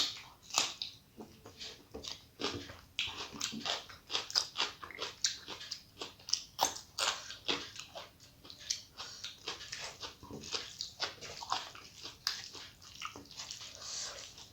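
A person eating close to the microphone: irregular wet chewing and lip-smacking, many quick clicks a second.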